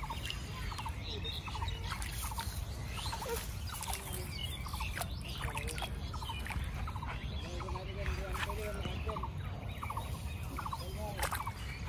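Outdoor ambience of short pulsed animal calls repeating about once or twice a second, over a steady low rumble.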